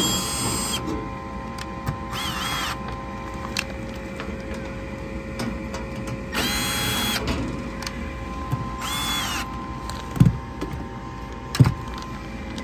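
Cordless screwdriver whirring in four short runs, each under a second, backing out screws from a furnace access panel. Near the end come two heavy thumps.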